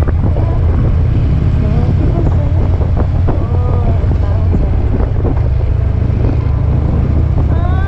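Harley-Davidson Ultra Limited's V-twin engine running steadily as the motorcycle rides at low street speed, with wind buffeting the microphone.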